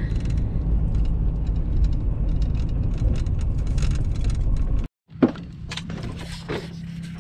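Pickup truck driving slowly over a sandy dirt road, heard from inside the cab: a steady low rumble with small rattles and ticks. It cuts off suddenly about five seconds in, and a few quieter clicks and knocks follow.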